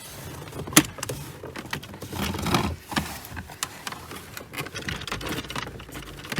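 Plastic car interior trim panel being worked loose from its snap clips: a sharp click about a second in, a longer stretch of plastic rubbing and knocking around the middle, and scattered small clicks.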